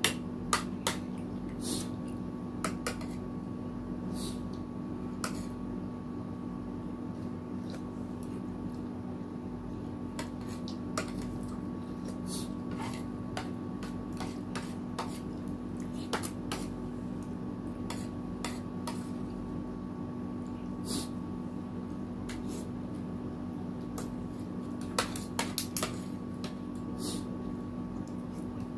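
Forks and spoons clinking and scraping against ceramic plates and a soup bowl during a meal, in scattered light clicks. A steady low hum runs underneath.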